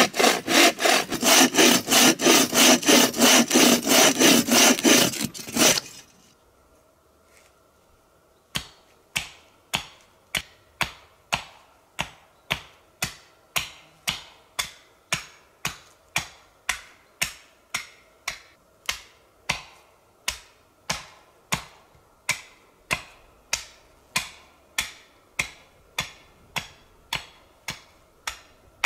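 Bow saw cutting through a log in quick back-and-forth strokes, which stop about six seconds in. After a short pause, an axe chops a notch into a wooden stake in a steady run of sharp blows, about one and a half a second.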